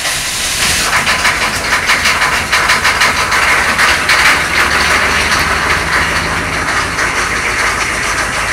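6.2-litre diesel V8 running at high idle just after a cold start, a steady run with a fast, even knock.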